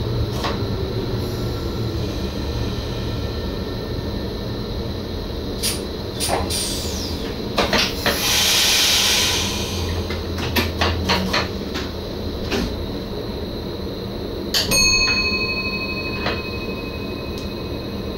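Cab sounds of an NS SGM Sprinter electric train: a steady low rumble with scattered clicks and knocks, a loud burst of air hiss lasting about two seconds near the middle, and a sharp click about three-quarters in followed by a faint high tone.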